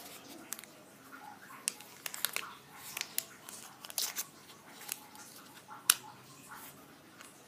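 Plastic protective seal film on a new smartphone being peeled off and crinkled: irregular crackles and small clicks, the sharpest about six seconds in.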